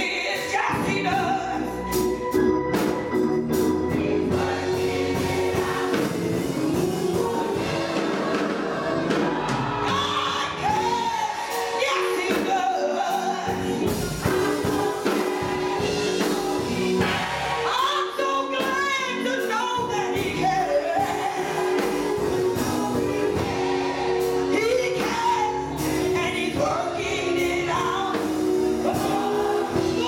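Gospel choir singing a song in full voice, with a woman's amplified lead voice among the choir.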